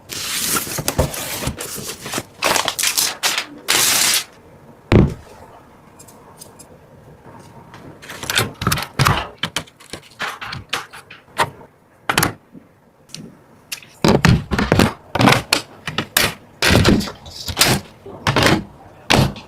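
Irregular clicks, knocks and scraping of hands handling and fitting computer parts, with plastic and metal pieces snapping and bumping together; a quieter lull about a third of the way through, then a fast run of clicks near the end.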